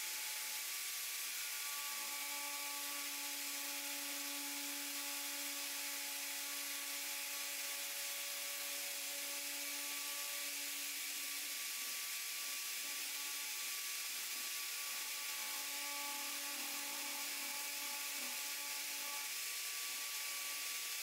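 A small high-speed rotary tool runs with a steady whine while it cuts V grooves along a crack in a polypropylene headlight housing. The whine fades for a few seconds midway, then comes back, over a constant hiss.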